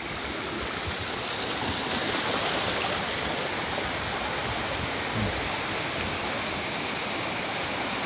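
Steady rush of water from a waterfall and its stream, growing slightly louder over the first couple of seconds.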